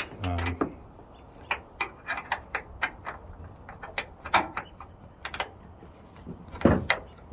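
Irregular clicks and knocks of small metal parts and hand tools being handled, loudest just before four and a half seconds in and again near the end.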